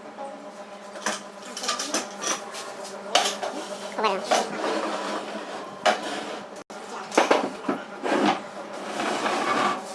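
Irregular clinks and knocks of metal against metal and wood, some with a short ring, as of hand tools and hardware being handled at a workbench.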